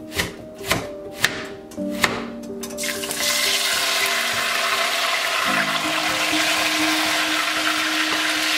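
Chef's knife chopping a red onion on a plastic cutting board, several sharp chops about twice a second. About three seconds in, the sliced onions hit a pan of hot oil and set off a loud, steady sizzle, with tomato strips tipped in near the end.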